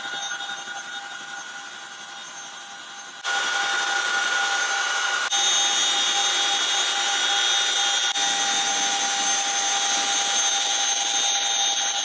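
CH-47 Chinook helicopter running with a steady high whine, several steady tones over a rushing hiss, heard from inside the cabin. It gets abruptly louder about a third of the way in and shifts at a couple of sudden cuts.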